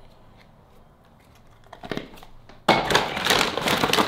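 Shopping bag crinkling and rustling loudly as it is pulled away from a drone. It starts suddenly about two-thirds of the way in, after a quiet stretch with a few small knocks.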